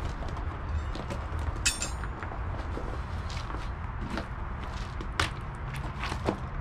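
Scattered clinks and knocks of metal tools and hardware being handled, the sharpest a ringing metallic clink about a second and a half in, over a steady low rumble.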